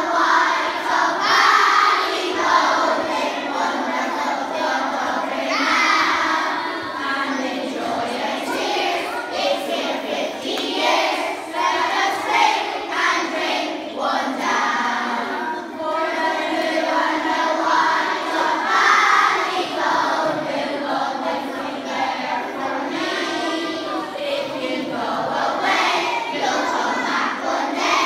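A large group of young children singing together.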